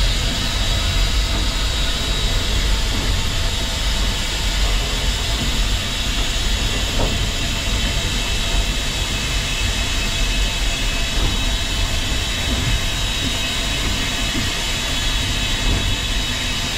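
Inside the cab of New Zealand Railways Ja-class 4-8-2 steam locomotive 1260 on the move: a steady rumble of the running locomotive with a constant steam hiss.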